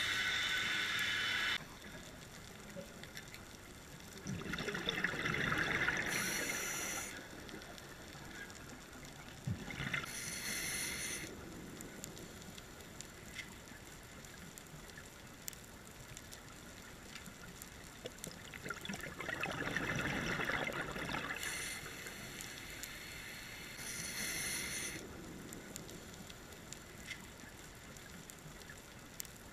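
Scuba regulator breathing underwater: short hisses of inhaled air and two long bubbling exhales about fifteen seconds apart, over a low steady water background.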